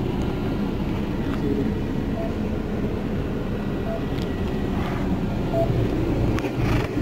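Steady low rumble inside an ambulance. A defibrillator-monitor gives short beeps about every 1.7 seconds, each marking a detected heartbeat at a slow rate of about 36 a minute.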